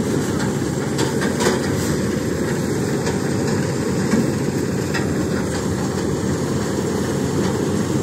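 Preet combine harvester running steadily as a stationary thresher, its diesel engine and threshing drum turning while hand-cut paddy bundles are fed in.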